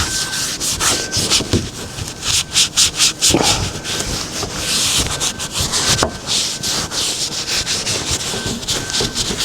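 A cleaning wipe rubbed briskly back and forth over the painted cab door around the lock, scrubbing off excess silicone sealer: a quick, uneven run of rubbing strokes.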